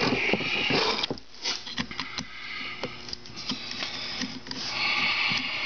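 Small clicks and knocks of a screwdriver working against a metal fuel filter and its hose clamps on a motorcycle fuel pump assembly. Two hissing noises of about a second each come at the start and near the end.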